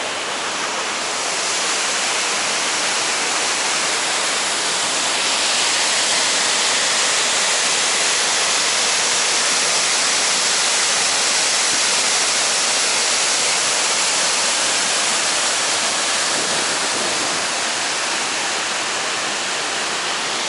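Waterfall on the Nituy River, its water pouring into a granite gorge with a loud, steady rush.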